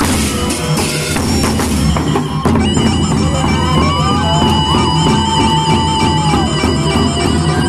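Large double-headed barrel drums of a gendang beleq-style ensemble beaten together in a steady rhythm. From about three seconds in, a reedy wind instrument joins with a wavering, held melody over the drums.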